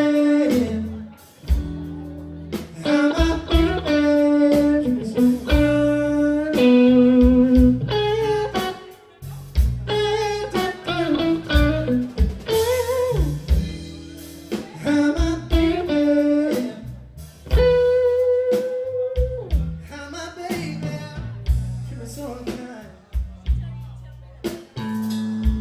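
Live electric blues band: electric guitar playing lead lines with bent notes over bass guitar and a drum kit.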